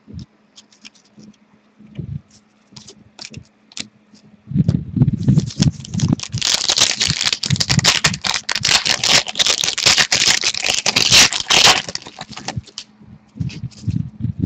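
Hands handling a pack of hockey trading cards: a few light clicks, then about seven seconds of dense crinkling and tearing of the pack wrapper, then scattered clicks as the cards are handled.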